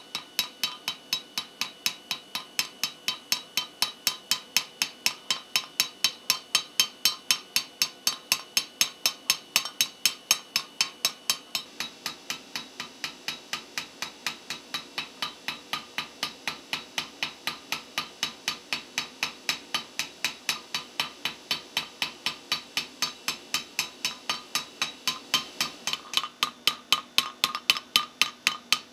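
Hand hammer striking red-hot steel tubing held in a V-block on an anvil, forging a taper into the tube. The blows come in a steady rhythm of about three a second, a little softer from about twelve seconds in and harder again near the end.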